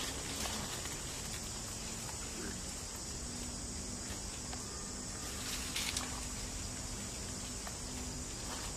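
Steady high-pitched insect chorus, with a few soft clicks and rustles about six seconds in.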